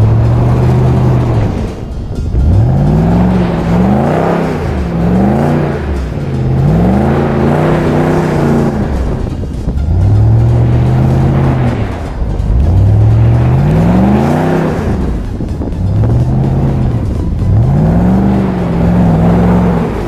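Dodge Ram 2500 Power Wagon's 6.4-litre HEMI V8 revving up and easing off again and again, its pitch climbing and falling every two seconds or so, heard close from outside the truck.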